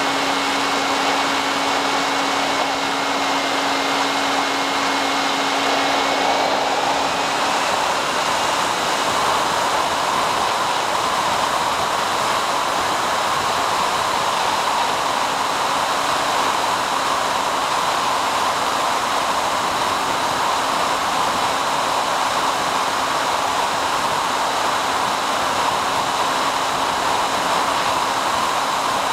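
Steady whir of the SkyHunter's electric motor and pusher propeller with rushing air, recorded in flight, with a faint high whine that shifts up slightly about seven seconds in.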